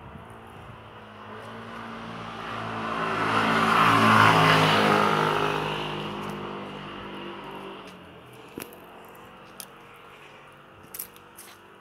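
A car driving past on the road: its engine and tyres grow louder, peak a few seconds in, then fade away over about six seconds. A few faint clicks follow near the end.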